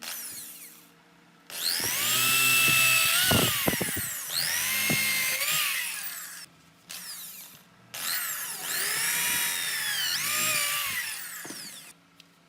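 Electric hand drill, mounted in a homemade drill press, run three times in bursts of a few seconds. Each time its motor whine rises quickly to speed, holds, then winds down.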